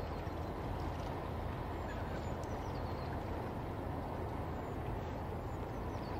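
Steady low drone of a passing cargo ship's engine over an even outdoor rush. A few short, high, falling bird calls come about two and a half seconds in and again near the end.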